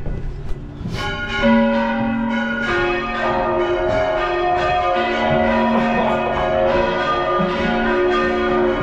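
Large church bells ringing at close range in the bell tower: several pitches struck in turn, ringing on over one another, with a loud fresh strike about a second and a half in.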